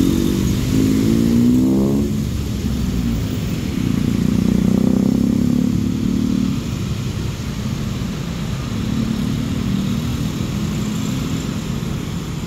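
Street traffic of motor scooters, motorcycles and cars passing close by, engines running over steady tyre and road noise. In the first two seconds one engine rises sharply in pitch as it accelerates away, and other vehicles swell and fade past later on.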